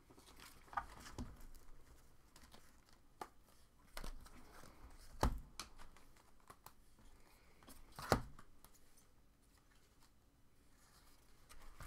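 Faint rustling and crinkling as trading cards and their wrappers are handled, with two sharper taps about five and eight seconds in.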